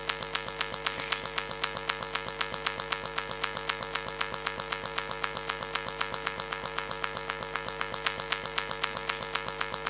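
Steady electrical hum and buzz from a faulty church sound system, with a fast, even clicking running through it.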